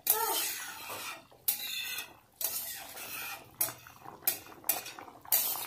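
A ladle stirring and scraping in a kadai of boiling curry gravy: a string of about seven irregular scrapes and clinks against the pan.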